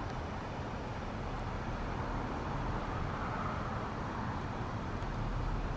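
Steady background noise with no distinct events: an even, low rumble and hiss of ambient noise.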